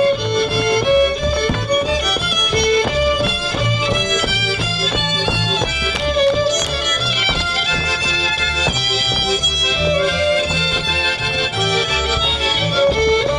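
Fiddle-led instrumental music with a pulsing bass line underneath, playing steadily throughout.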